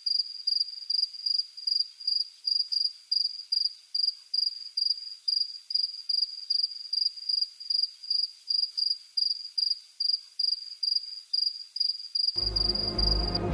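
A cricket chirping steadily in a high, even tone, about two and a half chirps a second, as night ambience. Music comes in about a second before the end.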